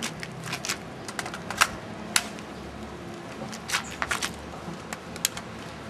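Irregular plastic clicks and clacks of a toy rifle being handled and reloaded, the two sharpest clicks about one and a half and two seconds in.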